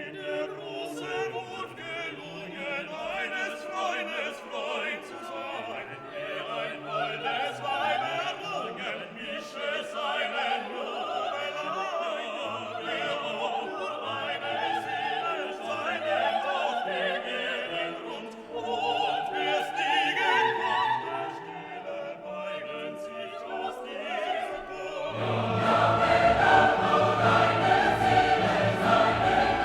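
Background music: classical choral and orchestral music with singing, becoming louder and fuller near the end.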